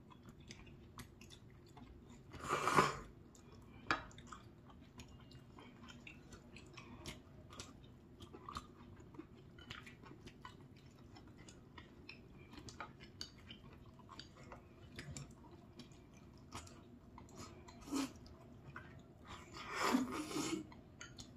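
Close-up eating sounds of spicy squid jjamppong ramyeon and chewy rice cakes being chewed, with many small wet clicks. Two louder noisy bursts stand out, one about three seconds in and one near the end.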